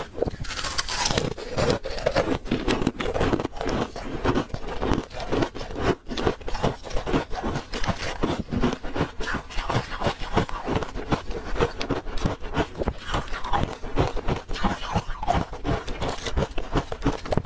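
Thin slabs of ice bitten and chewed close to the microphone: a continuous run of crisp, rapid crunches and cracks.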